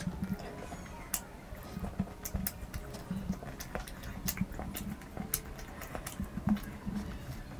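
A person chewing and smacking French fries, with many irregular wet mouth clicks and soft low chewing thuds.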